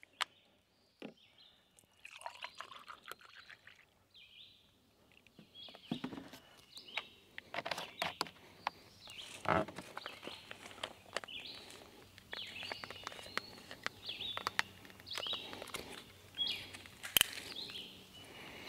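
Birds singing in the surrounding trees, with scattered plastic clicks and knocks from a hose flush mixer and its solution bottle being handled and screwed together.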